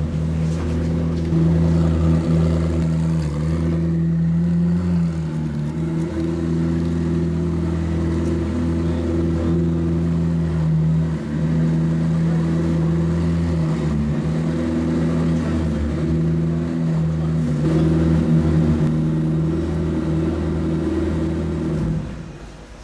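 McLaren P1 GTR's twin-turbo V8 idling steadily with a deep, even note that shifts slightly in pitch now and then. The sound drops away just before the end.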